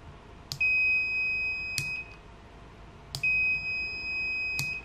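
Digital multimeter's continuity beeper sounding twice, a steady high beep of a little over a second each time. Each beep starts and stops with a click of the rocker switch being toggled on and off. The beep shows that the two clipped pins close a circuit when the switch is on.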